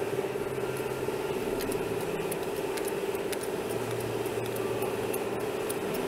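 A steady mechanical hum with faint scattered clicks as the band sawmill's blade-tensioning hydraulic jack is hand-pumped up to working pressure.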